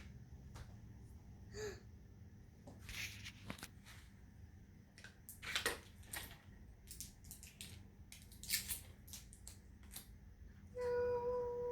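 Scattered faint clicks and rustles from a small plastic toy camera being handled. About a second before the end a steady pitched tone begins.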